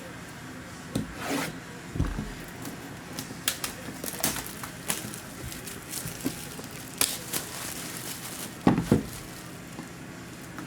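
Trading-card box being opened by hand: packaging tearing and rustling, cardboard rubbing, and scattered clicks, with a couple of louder knocks about two seconds in and near the end.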